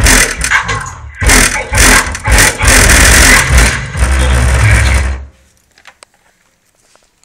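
Car-audio bass music played very loud through a Bravox BRAVO subwoofer, the deep bass hits so strong that the recording distorts; it cuts off suddenly about five seconds in.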